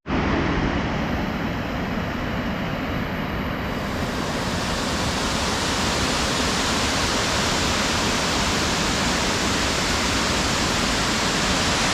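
Waterfall roaring up close: a loud, steady rush of falling water whose hiss grows brighter about four seconds in.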